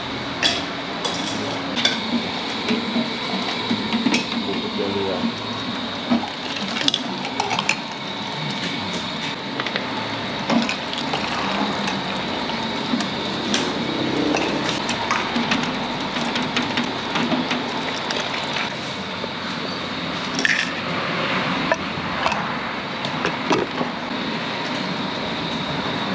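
Food-stall kitchen clatter: metal spoons, ladles and tongs clinking against steel pots, bowls and a steel tray in many short irregular clinks, with liquid being scooped and poured, over a steady background noise.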